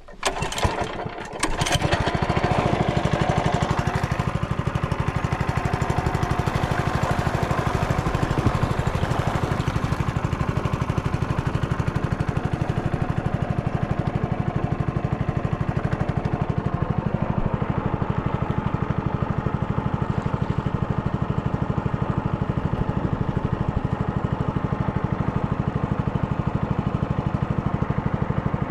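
A small engine starts about a second in, then runs steadily at an even pace.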